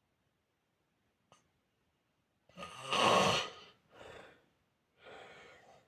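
Snoring in sleep: a pause of about two and a half seconds with no breath heard, then one loud snore, followed by two shorter, quieter snoring breaths. The uploader takes the pauses in the snoring for apnea.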